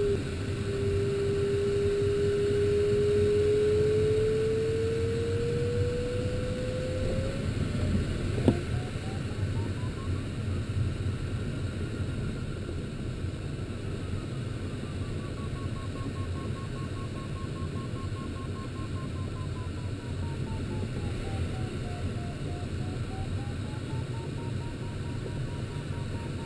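A glider's audio variometer sounding over steady airflow hiss in the cockpit: a clear low tone, slowly rising, for the first seven seconds or so, then after a sharp click a fainter, higher tone that rises and falls as the vertical speed changes near the cloud.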